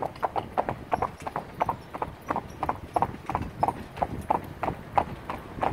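Hooves of a pair of harness horses pulling a carriage, clip-clopping on a tarmac lane in a steady rhythm of about three to four ringing strikes a second.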